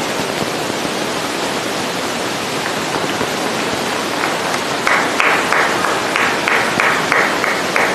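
Steady rushing wind noise on the microphone. Over the last three seconds a rapid, regular run of short sharp sounds, about four a second, stands out above it.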